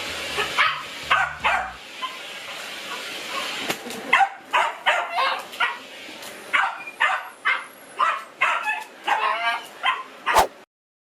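A dog barking and yipping in a rapid series of short, high-pitched calls, about two or three a second from about four seconds in, with some wavering, whining calls near the end.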